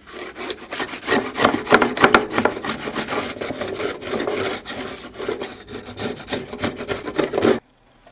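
Homemade wooden router plane with an Allen-key blade scraping across the bottom of a groove in an OSB board in quick, irregular back-and-forth strokes. It stops abruptly near the end.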